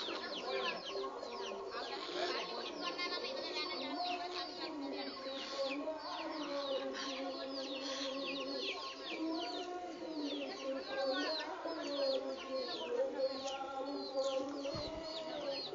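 Many birds calling at once: a dense, steady run of quick, high chirps that each slide downward, over lower wavering calls.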